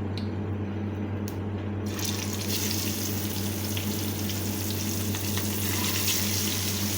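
Marinated fish pieces going into hot oil in a frying pan: a couple of light clicks, then the oil starts sizzling about two seconds in and keeps sizzling steadily. A steady low hum runs underneath.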